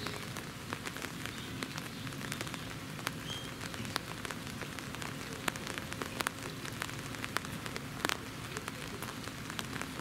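Rain pattering: a steady hiss with irregular sharp drip ticks, several a second.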